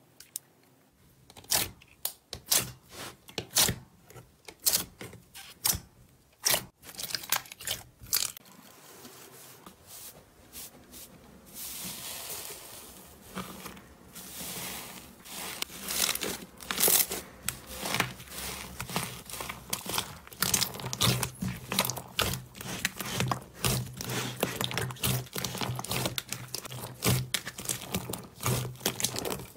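Slime being stretched, pressed and squeezed by hand, giving irregular sticky clicks, pops and crackles. The clicks come sparsely at first and grow into a dense crackle about halfway through.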